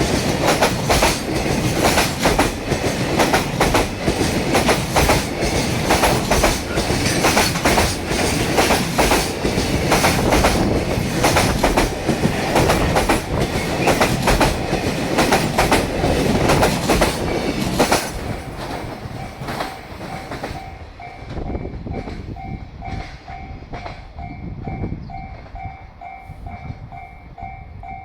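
Koki container wagons of a freight train rolling past, their wheels hammering over the rail joints in a fast clickety-clack. About eighteen seconds in the last wagon clears and the noise drops off sharply, leaving a level-crossing warning bell ringing in an even, repeating pattern as the train noise fades.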